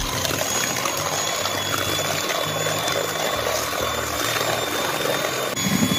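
Electric hand mixer running steadily, its twin beaters whisking eggs and sugar in a stainless steel bowl: a steady high motor whine over a wet, churning swish. This is the start of beating the eggs and sugar until fluffy.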